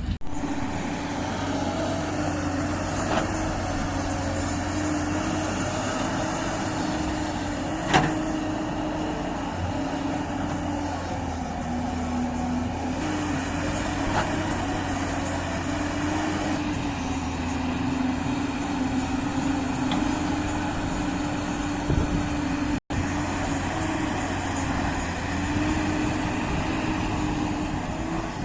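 Heavy diesel machinery running steadily, its engine note dipping slightly and recovering. A sharp knock comes about eight seconds in.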